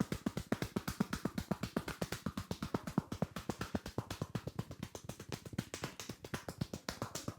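Fast, rhythmic hand slaps of a barber's percussive massage, palms or the edges of the hands striking the head or shoulders about seven times a second in an even beat.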